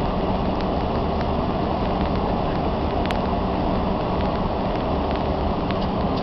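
Steady roar of engine and airflow noise inside a passenger aircraft's cabin during descent, with a low steady hum under it and a few faint clicks.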